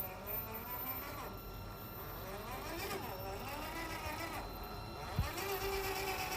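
Traxxas TRX-4 G500 RC crawler's electric motor and gear drive whining, the pitch rising and falling as the throttle changes, with one low thump about five seconds in.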